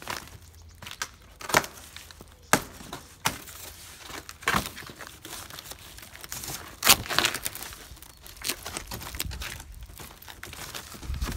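Taped cardboard packaging being torn and pulled apart by hand: crinkling and creasing, broken by a series of sharp rips.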